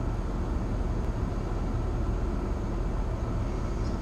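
Steady low rumble and rush inside a parked car's cabin, its engine idling and its ventilation fan blowing.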